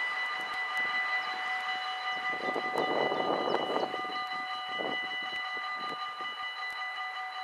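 Level crossing warning bells ringing steadily, several held tones together, as the crossing's barriers come down ahead of a train. About two seconds in a rushing noise swells for a second or two, with a shorter one about five seconds in.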